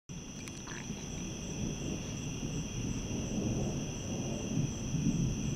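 A steady chorus of night insects trilling in high, even bands, over a low, uneven rumble that grows a little louder near the end.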